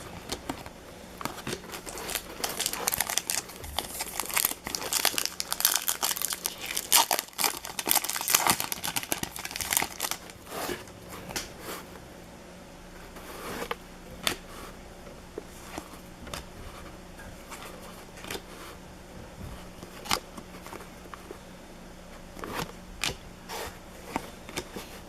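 Baseball card packs being torn open, their wrappers crinkling and tearing densely for the first ten seconds or so, then sparser crinkles and taps.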